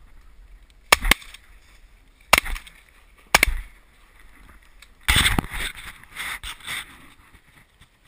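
Shotgun shots at ducks overhead: four sharp blasts in about two and a half seconds, the first two close together. They are followed by a couple of seconds of clattering and rustling noise close to the microphone.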